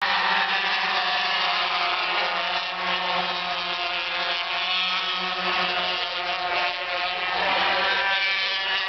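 Several 125cc Grand Prix racing motorcycles, two-stroke singles, running flat out past the fence, their engine notes overlapping in a dense, continuous whine.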